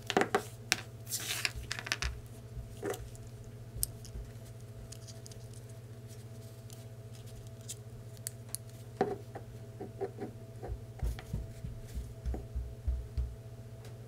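Small chrome water valve and switch parts handled and fitted together by hand: scattered light metallic clicks, taps and scrapes, with wires rubbing, thickest near the start and again toward the end. A steady low hum runs underneath.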